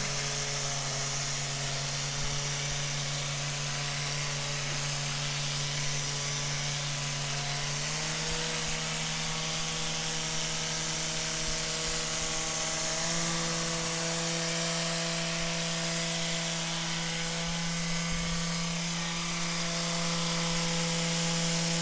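Rapid Release Pro 2 handheld high-speed vibration device buzzing steadily as it is worked over the foot, its pitch stepping up a little about eight seconds in and again about thirteen seconds in.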